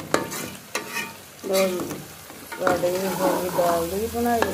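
Steel ladle stirring meat and lentils frying in ghee in an aluminium pot, at the bhunai stage: the ladle clinks and scrapes against the pot over a steady sizzle. A wavering pitched scraping tone comes briefly a little over a second in and again through the second half.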